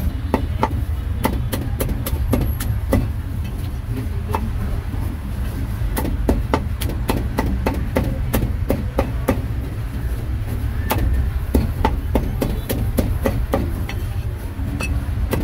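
Meat cleaver chopping grilled meat on a chopping board: repeated sharp chops at an uneven pace, a few a second, over a steady low rumble.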